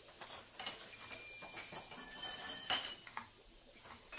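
Kitchen clatter: dishes and cutlery clinking, with a few short ringing tones and a brief rush of noise a little over two seconds in.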